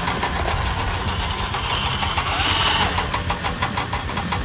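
A vehicle engine idling with a steady low rumble. About three seconds in, a fast, regular ticking rattle joins it.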